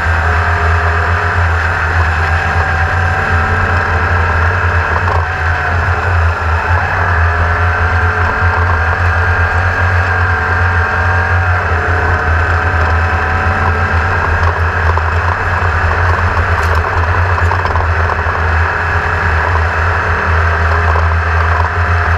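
A motor-driven machine running steadily, with a strong low hum and several whining tones that sag briefly in pitch twice.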